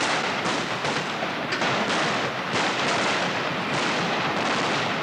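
A dense barrage of gunfire and explosions from the installation's war soundtrack, overlapping bangs about twice a second with no pause.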